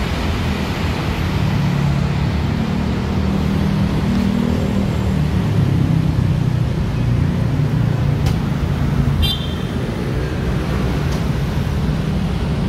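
Steady city road traffic with a low engine drone as a Transjakarta city bus pulls away down the busway lane. A short high-pitched tone sounds once about nine seconds in.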